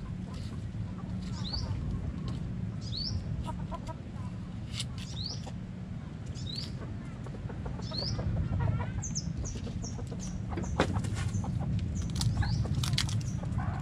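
Chickens clucking, with a short high rising chirp repeated about every second and a half and a quick run of high peeps around nine seconds in. A few sharp knocks come near the end.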